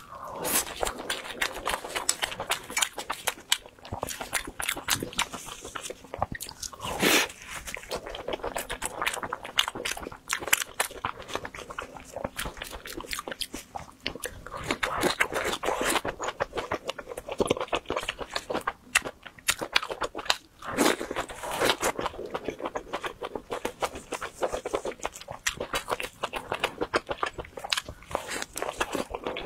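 Close-miked biting and chewing of crunchy fried skewer food: a dense run of crackling crunches and wet chewing, with a few louder bites now and then.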